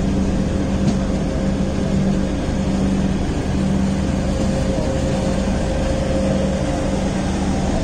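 Steady rumble and hum of LHB passenger coaches moving slowly past another train close alongside, with a faint higher tone above it and no wheel clacks.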